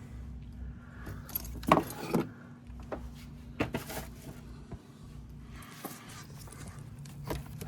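Metal bolts and hand tools clinking and clattering as they are handled, in a few loose clusters, over a steady low hum.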